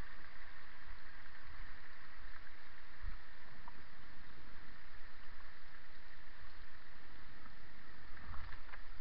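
A vehicle driving down a rough, rocky track: a steady running noise with a few low bumps as it goes over the stones.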